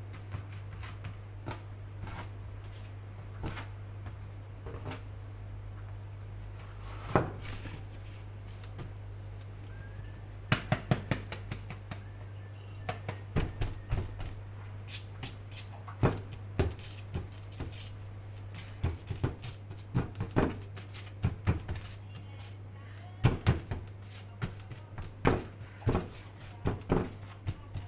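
Scattered sharp taps and clicks from hands working with dough and kitchen utensils, sparse at first and coming more often from about a third of the way in, over a steady low hum.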